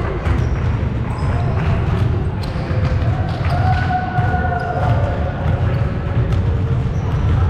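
A ball bouncing on a hardwood gym floor, with scattered footsteps, some voices and a steady low rumble.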